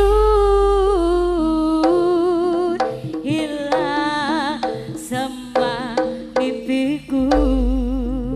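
Live East Javanese jaranan gamelan music: a long, wavering melody line sliding between held notes over quick hand-drum strokes, with a deep low boom at the start and again near the end.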